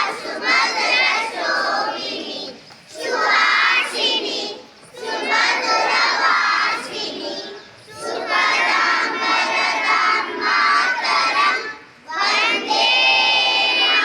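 Many children's voices in unison, singing or chanting together in phrases of a few seconds, with short breaks between phrases.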